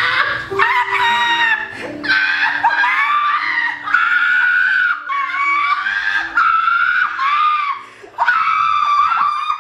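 Women shrieking and laughing in long, high-pitched squeals, with a short break near the end, over background music.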